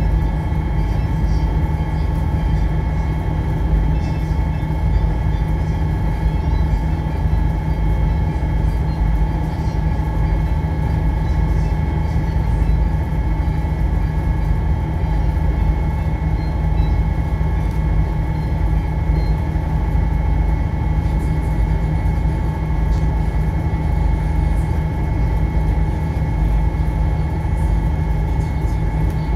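Fukuoka municipal ferry's engine running steadily underway, a constant drone with several steady hums, over the rush of water from the boat's wake.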